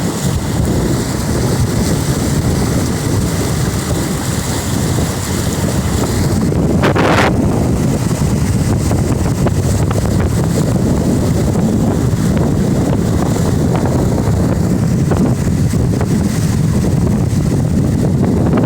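Wind buffeting the microphone over a steady low rumble, with a brief hiss about seven seconds in.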